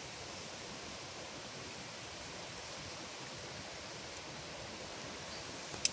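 Steady rush of flowing river water, with one sharp click near the end.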